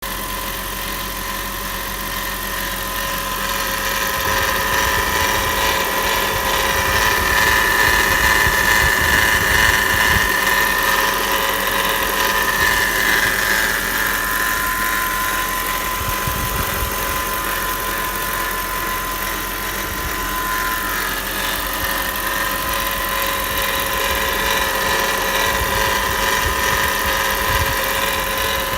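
Audi A8 4.2 V8 engine running with an abnormal high-pitched whine over the engine note, a noise that varies with engine speed. It grows louder a few seconds in, eases off, then builds again.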